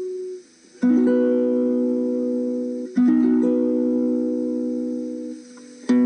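Background music: slow chords, each struck and left to ring out, the second coming about two seconds after the first, following a brief pause.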